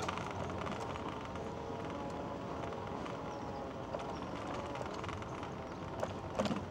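Rolling noise of a ride along a rough concrete sidewalk over a steady hum of city street traffic, with a couple of sharp knocks near the end.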